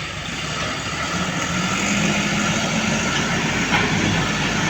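Engine of an oil palm fruit grab loader running; its revs rise over the first second or two and then hold steady. There is one short knock a little before the end.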